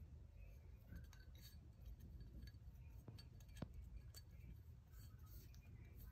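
Near silence with faint scattered clicks and small clinks of hands working a large rubber seal onto a metal 4L60E transmission part; one sharper click about three and a half seconds in.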